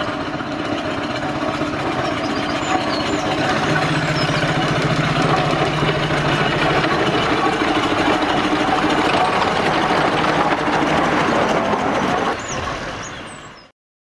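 Garrett compound steam tractor running along a main road at low speed, with cars and a van following close behind it. The sound fades and cuts off near the end.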